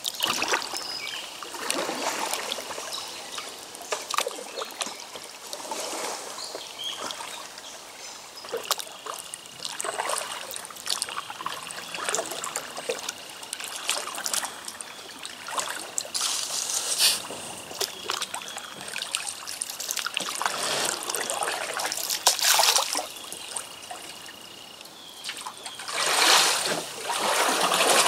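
Kayak paddle strokes splashing and dripping in shallow river water, with water trickling between strokes and louder splashes every few seconds, the biggest near the end. A faint, thin, steady high whine runs through the middle.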